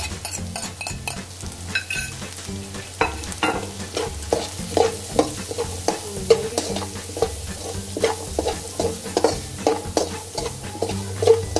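Metal slotted spatula scraping and knocking against an aluminium frying pan as diced carrots and onions are stirred with the just-added spices, over a steady sizzle of frying in oil. The strokes come about twice a second and grow stronger about three seconds in.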